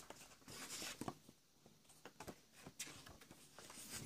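Faint rustling of paper as the pages of a thin children's reading book are turned and handled, with a few soft clicks.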